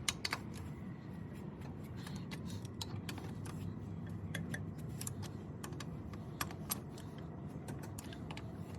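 Scattered light clicks and taps of a wrench on a wheel's lug nuts during a tightening pass, with a low steady hum underneath.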